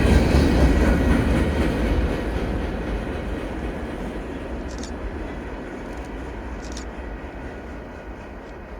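Freight train cars rolling past on the rails with a clattering rumble that fades steadily as the train moves away.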